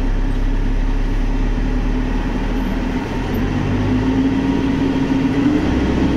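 Diesel engine of a wheeled backhoe loader running steadily, heard from inside the cab while the machine is driven and steered. The engine note rises a little about four to five seconds in.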